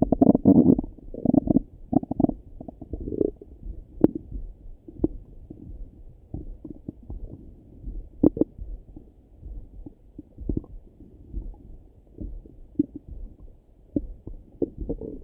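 Stomach rumbling heard through a Littmann stethoscope, muffled with little above the low range. A run of loud gurgles comes in the first few seconds, then softer scattered gurgles with a few sharp pops.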